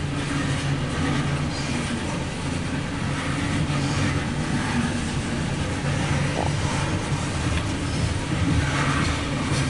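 CSX freight train cars rolling past close by: a steady rumble of steel wheels on the rails.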